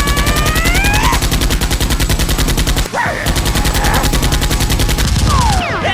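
Rapid automatic gunfire sound effect in two long bursts with a brief break between them, standing in for a blaster firing. A short shout rises over the first burst.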